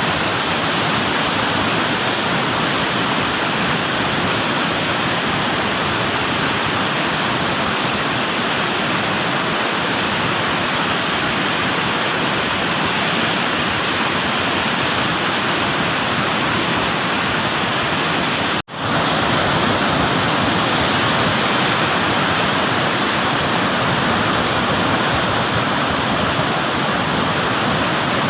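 Floodwater rushing through a dam's open spillway gates, a steady loud rush of water. It breaks off for an instant about two-thirds of the way through and comes straight back.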